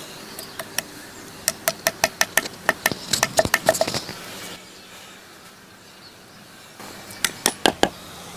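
Quick runs of light, sharp taps or clicks, about four or five a second: a run of about two and a half seconds, then a shorter one near the end.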